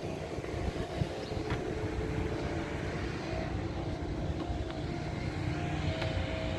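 A steady engine drone: a low rumble with a constant hum over it.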